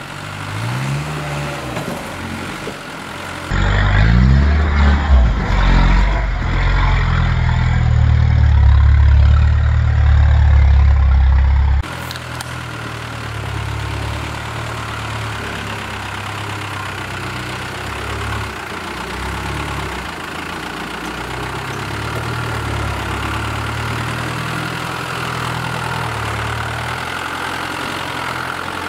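Land Rover 110 County (Defender) engine revving up and down under load as the 4x4 crawls over rock steps. It is loudest, with a heavy low rumble, for several seconds after the start, then runs at a steadier, lower level.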